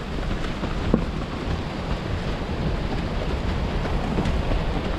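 Mountain bike riding down a wet trail: steady low rumble of wind buffeting the camera microphone and tyres on the dirt, with a few sharp clicks and rattles from the bike.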